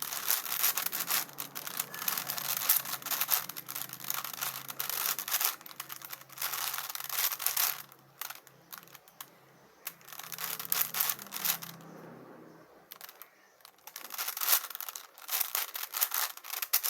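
Plastic 5×5 Rubik's cube being turned quickly by hand, its layers clicking and clattering in rapid runs with a couple of short pauses.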